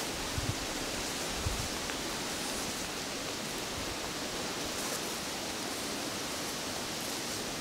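Steady outdoor rushing noise, like wind or brush rustling on the microphone, with a few soft low thumps in the first second and a half.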